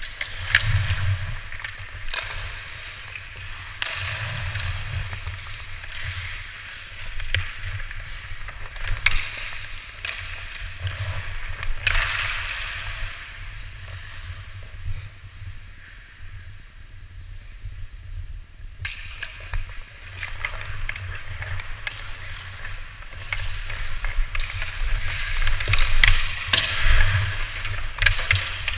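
Ice hockey play: skate blades carving and scraping the ice in repeated swelling hisses, with many sharp clacks of sticks and puck throughout, over a low rumble.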